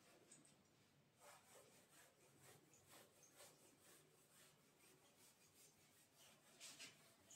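Faint short strokes of a marker on a whiteboard as figures are written, with the loudest stroke near the end.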